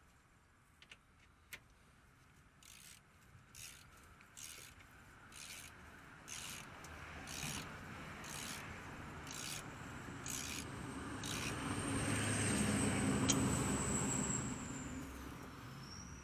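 A motor vehicle going past, its rumble growing louder to a peak a little past the middle and then easing, with a thin high whine. Earlier on, short scraping strokes come about once a second.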